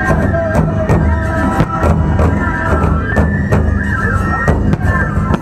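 Nebuta festival hayashi played live: shrill fue flutes playing a held, ornamented melody over a steady beat of taiko drums and clashing hand cymbals.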